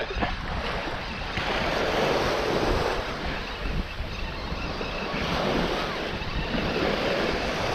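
Waves washing in on the shore, swelling and falling back a couple of times, with wind rumbling across the microphone.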